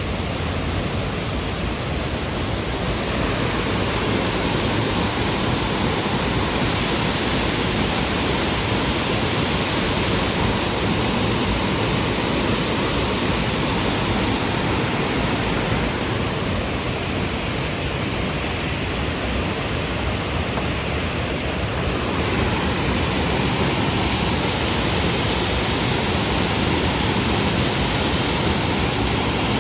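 Steady, loud rushing of a waterfall, an even roar of falling water with no breaks.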